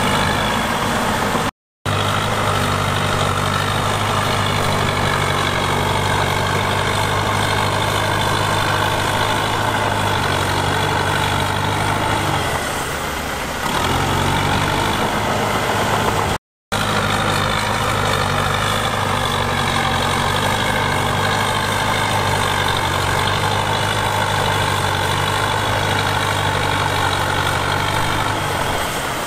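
Heavy diesel earthmoving machinery running steadily, its engine held at an even speed. The sound cuts out completely twice, briefly: about two seconds in and just past the middle.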